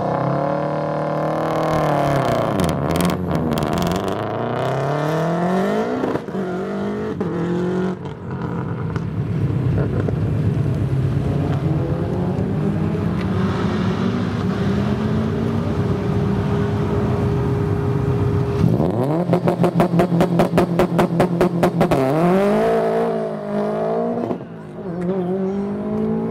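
Rally-sprint cars' engines revving hard and pulling away, the pitch climbing and dropping through gear changes. Later one engine is held at steady revs with a rapid stutter of about seven pops a second for a few seconds, then its pitch climbs again as it accelerates away.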